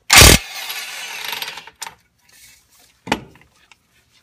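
Impact wrench hammering the 24 mm strut bracket bolt loose on a Ford Mustang's front suspension: a loud burst, then about a second and a half of rattling, and a second short burst about three seconds in.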